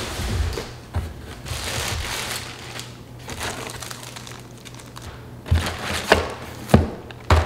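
Cardboard box and plastic-bagged accessories being handled, with rustling and crinkling of packaging as items are unpacked. Then a few sharp knocks as pieces are set down on a countertop, the loudest near the end.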